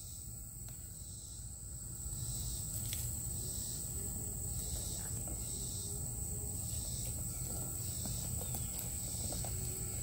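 Insects trilling outdoors: a steady high-pitched buzz with softer swells about once a second, over a low rumble.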